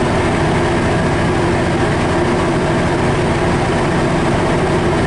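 MARC diesel locomotive idling steadily and loudly at a standstill, an even, unchanging engine sound.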